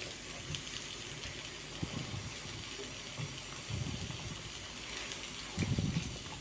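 Pot of tomato soup simmering on a gas stove, a steady hiss, with two dull low bumps around the middle and near the end.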